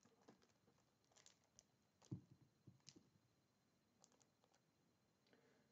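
Near silence, with a few faint clicks and plastic rustles from a bagged comic book being lifted off and set onto a display stand; one slightly louder tap about two seconds in.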